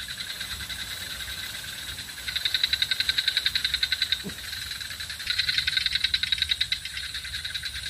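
Evening chorus of calling animals by a river: a steady high drone with two bouts of a fast, even, high-pitched pulsing trill, about ten pulses a second, the first about two seconds in and the second about five seconds in.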